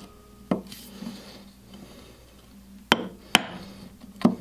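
A mallet striking a chisel, chopping dovetail waste out of softwood: four sharp knocks, one about half a second in and three close together near the end.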